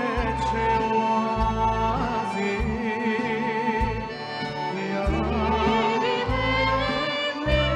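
A man singing a slow song with a wide vibrato, accompanied by a live band with a bass line moving note by note underneath.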